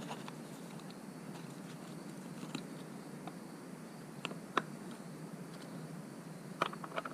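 Scattered light clicks and taps of small chainsaw parts and hand tools being handled during assembly, over a steady low hiss, with a sharper tick about four and a half seconds in and a small cluster of clicks near the end.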